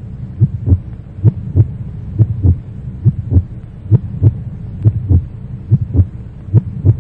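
Heartbeat sound effect: paired lub-dub thumps a little under once a second, over a steady low drone.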